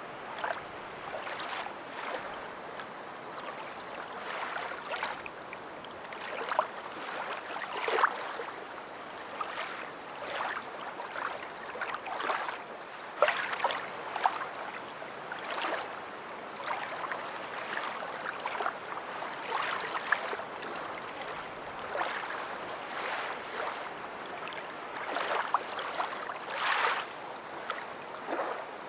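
Water splashing and lapping in irregular bursts over a steady wash of noise.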